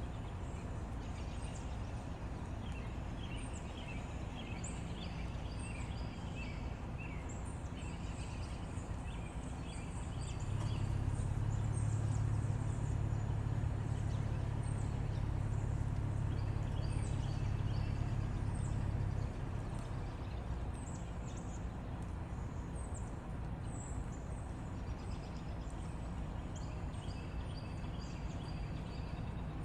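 Outdoor background of small birds chirping and calling over a low rumble, with short repeated chirps throughout. A louder low, steady hum comes in about ten seconds in and stops suddenly near the two-thirds mark.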